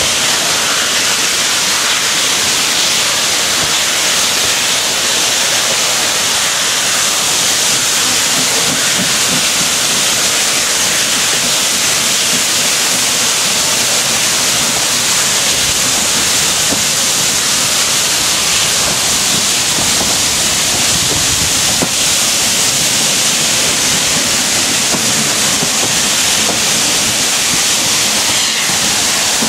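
Four steam locomotives working hard together at the head of a train, heard from a carriage window: a steady, loud rush of exhaust and hissing steam with no separate beats standing out.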